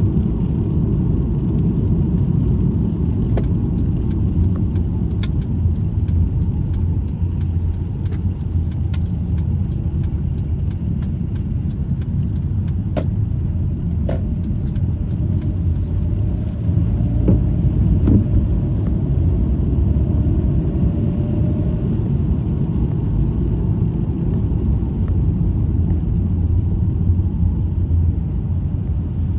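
Steady low road rumble heard from inside a moving car driving on wet asphalt, with a few faint scattered clicks.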